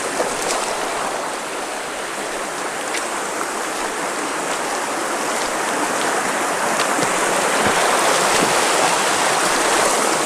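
Waterfall water pouring and rushing, a steady rushing noise that grows a little louder in the second half.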